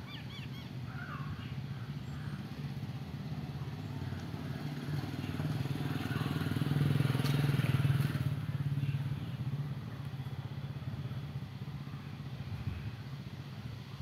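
A motor vehicle's engine running steadily, growing louder to a peak about seven seconds in and then fading, as a vehicle passing by would.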